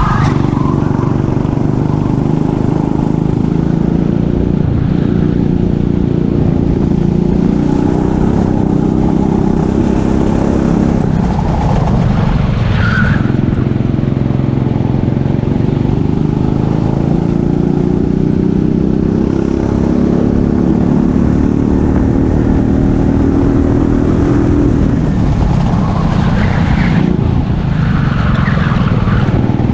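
Racing kart engine under hard throttle, its pitch climbing slowly along the straights and dropping sharply twice, about twelve and twenty-five seconds in, as it slows for corners. Short tyre squeals come through the corners.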